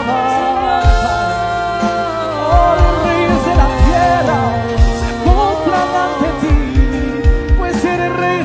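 Live Christian worship music: a band with drum kit and keyboard accompanying singing voices that hold long, wavering notes, with a regular kick-drum beat underneath.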